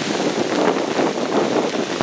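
Typhoon wind gusting across the microphone over heavy rain, an uneven rushing noise that swells and dips.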